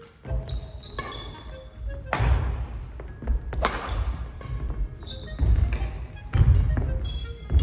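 Badminton rally: rackets crack against the shuttlecock about every one and a half seconds, echoing in a gym hall, while the players' footsteps thud on the wooden court floor.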